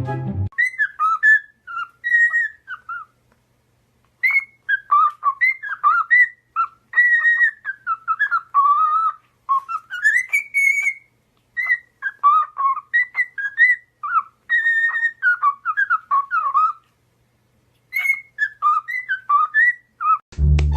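Pet parrot whistling: long strings of quick, clear whistled notes that slide up and down in pitch, with two short pauses. Background music is cut off just after the start and comes back just before the end.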